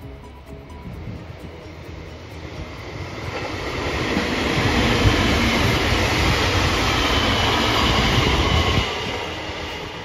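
A train passing by on the rails: its rumble and high hiss swell over a few seconds, hold loud, then drop away sharply near the end.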